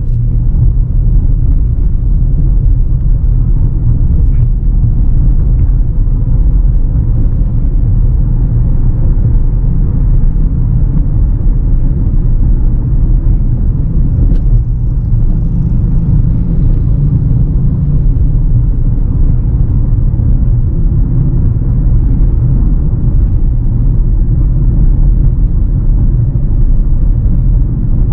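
Steady low rumble of a 2018 Honda CR-V Turbo Prestige driving at about 35–50 km/h, its engine and tyres on the road heard from inside the cabin.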